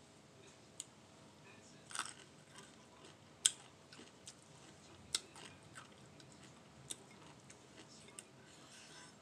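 A person eating fried fish by hand close to the microphone: wet chewing and lip-smacking heard as a scatter of short sharp clicks, the loudest about three and a half seconds in.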